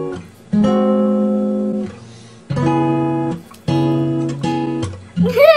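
Acoustic guitar strumming slow chords, a new chord struck about every second and left to ring. Near the end a brief rising voice cuts in.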